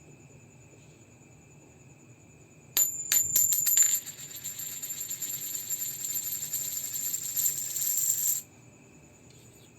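A US Liberty one-dollar coin dropped onto a hard surface: several quick, sharp bounces about three seconds in, then it keeps ringing high and rattling for about four and a half seconds before stopping abruptly.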